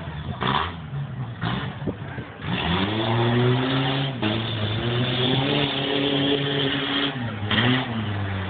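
Race pickup truck's engine revving hard at full throttle. The engine note climbs about two and a half seconds in, holds high with a brief dip, then falls away near the end.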